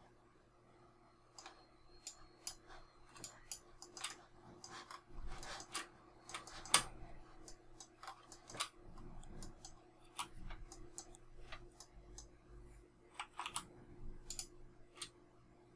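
Faint, irregular clicks of a computer mouse and keyboard, sometimes several in quick succession, over a faint steady electrical hum.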